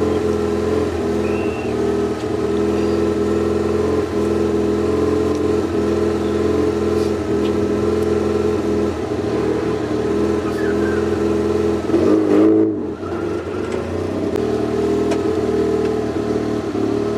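Fiat 126p rally car's air-cooled two-cylinder engine idling steadily, heard from inside the cabin, with one brief blip of the throttle about twelve seconds in.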